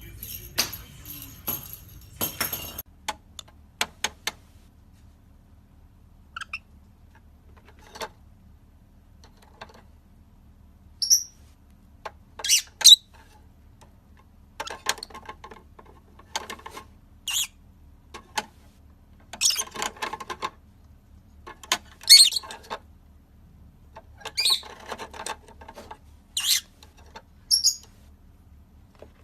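A bird giving short, separate chirps and harsher squawks at irregular intervals, one every second or two.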